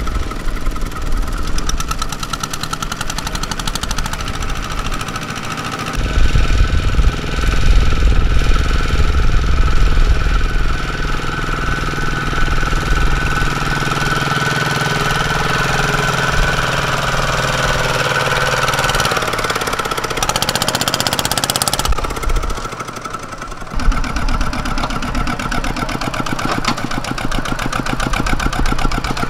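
Diesel tractor engine running with a knocking beat. Its note and loudness shift several times: it gets louder about six seconds in, changes again later, and dips briefly before picking back up.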